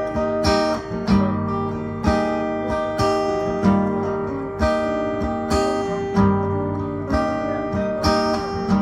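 Instrumental music: a strummed acoustic guitar with sustained notes over a steady beat, a stroke a little under a second apart.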